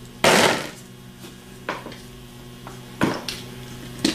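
One loud metal clank, then a few lighter metallic knocks and clicks, as the drive-end housing of a Delco 37MT truck starter is worked loose from the starter frame.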